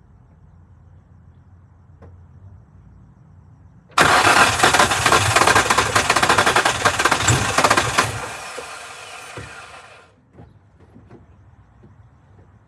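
Nissan 350Z's 3.5-litre V6 being cranked by its starter motor: a sudden loud, fast, churning crank about four seconds in that lasts about four seconds, then fades away over the next two without the engine catching, the no-start fault the car has.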